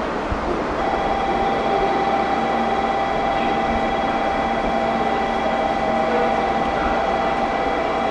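Train running at steady speed, heard from inside the carriage: a continuous rumble with a constant whine that joins in about a second in.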